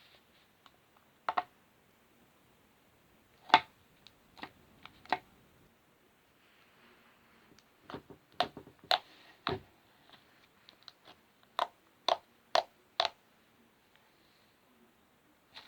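Slime being squeezed and worked by hand, popping trapped air with irregular sharp clicks, some in quick runs of two or three.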